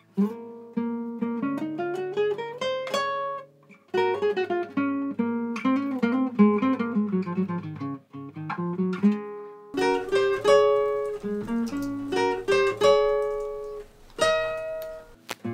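Acoustic guitar played solo: quick melodic runs of single picked notes climbing and falling, broken by short pauses about four and eight seconds in.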